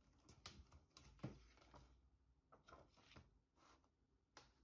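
Faint handling noises: a string of soft clicks and rustles from packaging and accessories being handled, spread unevenly through otherwise near-silent room tone.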